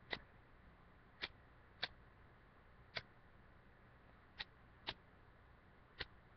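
Zippo lighter's flint wheel struck seven times at uneven intervals of about half a second to a second and a half, each strike a short sharp click. The lighter does not catch, with the flint acting 'really weird'.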